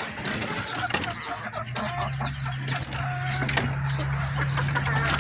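Gamefowl chickens clucking, with short scattered calls. A steady low hum comes in about two seconds in.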